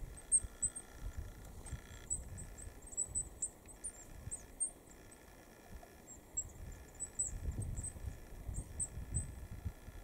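Goldcrest calling: many short, very high, thin notes scattered irregularly, over a low rumble.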